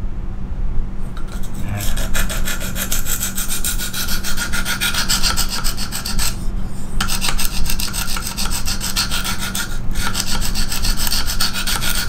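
KME guided-rod sharpener's diamond stone stroked quickly back and forth along a clamped knife edge, a scraping rasp that starts about two seconds in and pauses briefly midway. These are test strokes over marker ink on the bevel to check the newly lowered sharpening angle.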